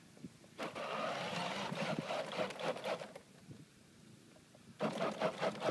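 Battery-powered ride-on toy jeep driving over grass: its electric drive motors and plastic gearboxes run with a rattling whir, stop about three seconds in, and start again near the end.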